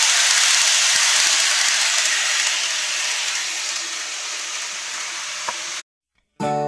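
Model train of a Keikyu electric unit running along the layout track, a steady hiss-like rattle of wheels and motor that slowly fades as the train moves away. It cuts off near the end, and music starts just after.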